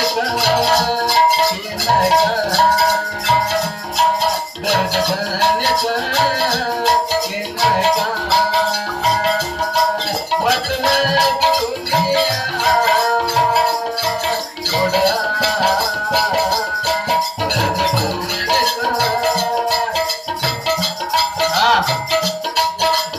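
Instrumental interlude of live folk music: a harmonium plays the melody over fast, steady rattling percussion.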